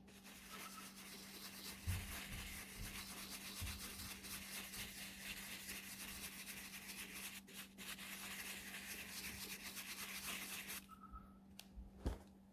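Fast, continuous scrubbing on the textured grain of a car door card, stopping about eleven seconds in.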